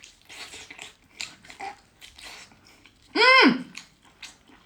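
Soft wet squishing and small clicks, as of a raw octopus being handled and opened. About three seconds in, a loud vocal exclamation falls sharply in pitch.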